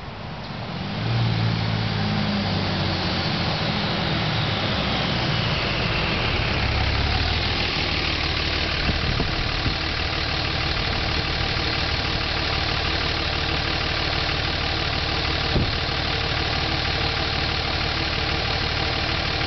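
Dodge Ram 2500's Cummins straight-six turbo diesel pulling up close and slowing to a stop, a high whine falling in pitch as it slows, then idling steadily. A single sharp click comes about three quarters of the way through.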